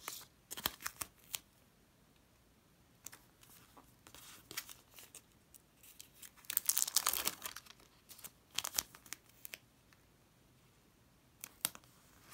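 Tape-covered paper sticker being handled, its backing peeled off and the sticker smoothed down onto a paper page. It makes short crackly rustles with quiet gaps between them, loudest about seven seconds in.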